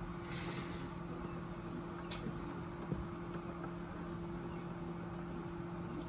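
Egg incubator running with a steady electric hum, with a short rustle about half a second in and a couple of small clicks and knocks a few seconds in.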